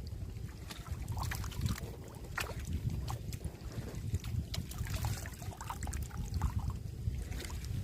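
Wind rumbling on the microphone, with scattered short clicks and ticks throughout.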